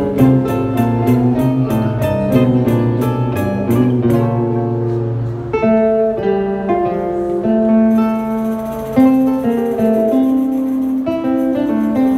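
A choro ensemble playing: two classical guitars, a cavaquinho and a pandeiro. The guitars play a low bass line that gives way to higher melody notes a little past halfway. The pandeiro's even jingle strokes drop out about four seconds in and come back near eight seconds.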